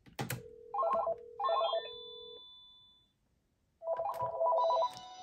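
Panasonic cordless phone ringing with an incoming call: short warbling electronic ring bursts, two close together about a second in and a longer trill near four seconds. A click at the start and a steady tone under the first bursts.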